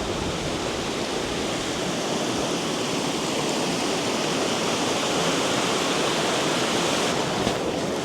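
Waterfall rushing: a steady, dense roar of falling water.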